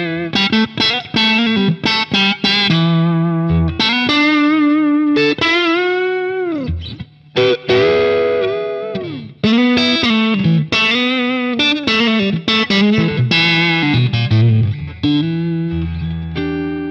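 Electric guitar played through a Boss Katana-100 amplifier preset and recorded from the amp's USB output. It plays a lead line of single notes with string bends and vibrato, and ends on a held chord with a low note ringing near the end.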